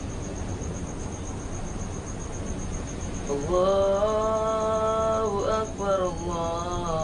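A man's voice chanting long held notes, sliding between them, over a low hum. The chant pauses for the first three seconds or so and comes back about halfway through.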